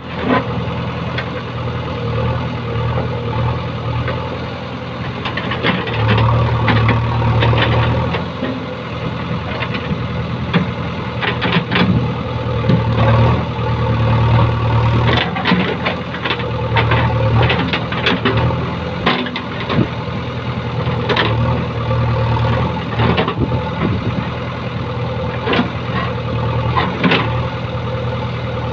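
JCB backhoe loader's diesel engine running under load while the backhoe digs, its note swelling again and again as the arm works, with scattered knocks and scrapes of the bucket in earth and stones.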